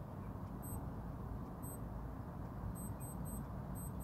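A Naviforce NF9134 digital watch's countdown timer beeps once a second through its last seconds, twice. At zero, just under three seconds in, it breaks into quick groups of short high-pitched alarm beeps. Under the beeps runs a steady low background rumble.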